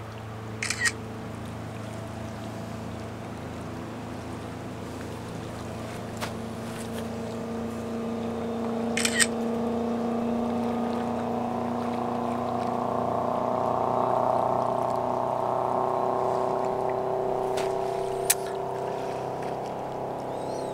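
A motorboat's engine drones steadily on the river, growing louder toward the middle and then easing a little. A few sharp clicks sound over it.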